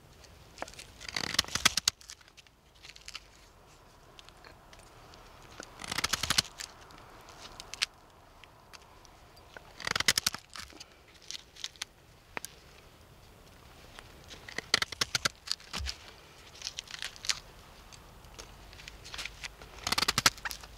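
Knife blade shaving curls off a dry stick: several short runs of rapid scraping strokes, a run every few seconds, as fine shavings are cut for fire tinder.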